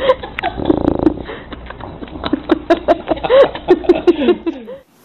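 A bulldog making a quick run of short, whiny grumbling calls, several a second, with snuffly clicks between them; the sound cuts off suddenly near the end.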